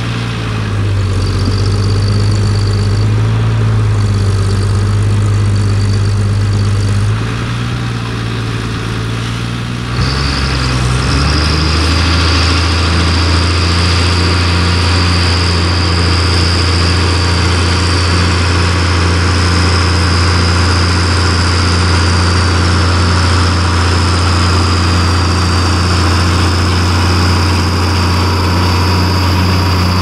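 International Harvester 956 XL tractor's six-cylinder diesel engine running steadily under ploughing load, with a thin high whine over it. About ten seconds in, the sound shifts abruptly to a louder, steadier note as the tractor draws near.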